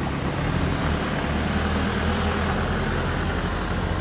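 Land Rover Defender driving slowly past at close range, its diesel engine running low and steady over the noise of tyres on gravel, with a Toyota FJ Cruiser moving behind it. A faint, broken high tone comes in about halfway through.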